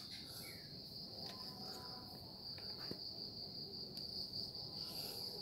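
A steady high-pitched insect trill, as of crickets, running unbroken, with a few faint handling knocks.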